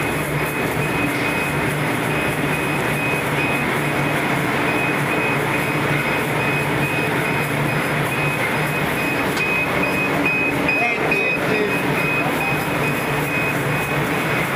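Popcorn production machinery running steadily: a geared electric motor turns the stirrer in a stainless-steel pan, and popcorn tumbles against the metal. A high beep repeats about twice a second throughout.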